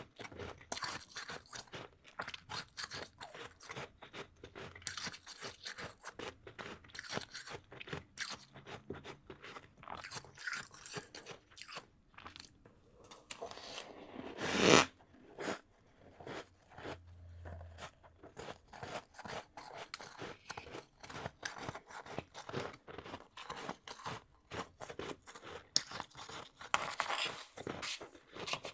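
Close-miked chewing of powdery freezer frost: rapid, crackly crunches with no pause. About halfway through a louder noisy surge builds for about a second and cuts off sharply.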